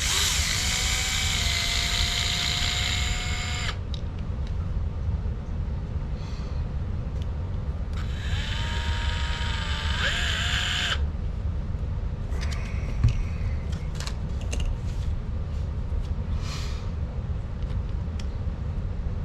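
Small handheld electric driver whirring in two bursts of about four and three seconds, its motor pitch steady, then light clicks and taps of small parts being handled.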